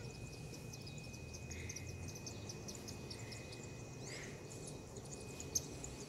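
Faint garden ambience: scattered high-pitched chirps and a thin steady high whine, with one short click a little before the end.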